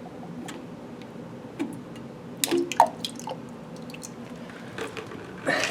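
Thin, runny used engine oil dripping and spilling as the oil filter comes off: scattered separate drips and small knocks, with a louder knock near the end.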